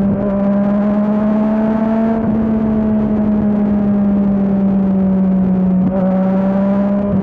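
Yamaha MT-09's three-cylinder engine through an Akrapovič exhaust, pulling steadily while riding. The engine note climbs slightly for about two seconds, then slowly sinks, with brief dips near six seconds and again at the end.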